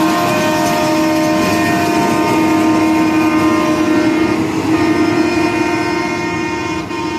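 Air horn on a passing railway track-maintenance machine, a tamper or ballast regulator, held as one long multi-note blast over the machine's engine and wheel noise. The chord of the horn changes about four and a half seconds in.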